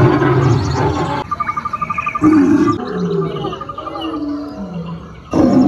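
Recorded wild-animal growls and roars played for animatronic animal models, with a quick run of high chirps about a second and a half in. The calls fade lower, then a loud roar breaks in suddenly near the end.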